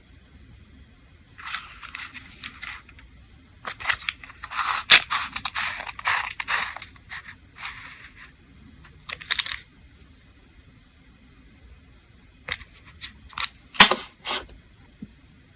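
Small objects being handled: several irregular bursts of scraping and rustling, then a few sharp clicks or taps near the end.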